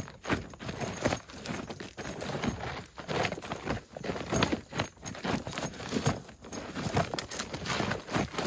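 Irregular footsteps and shuffling on dry, twiggy dirt, mixed with creaks and rustles of leather gear and saddle tack, as a man moves around a saddled horse and handles it: a steady run of short knocks and scrapes.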